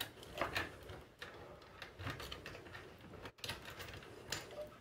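Faint, scattered clicks and rustles from hands handling wires and small plastic connectors at a 3D printer's control board.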